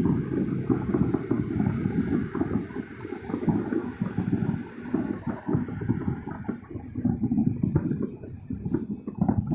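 Distant fireworks booming in quick, irregular succession over a continuous low rumble.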